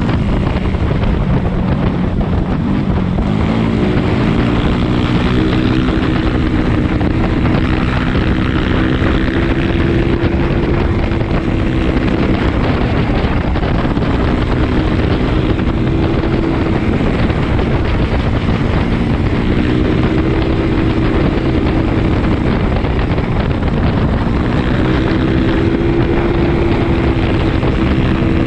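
Yamaha Mio 160cc scooter's single-cylinder engine running at riding speed, with wind noise on the microphone. Its pitch dips about three seconds in and climbs back as the throttle opens again, then holds fairly steady with small rises and falls.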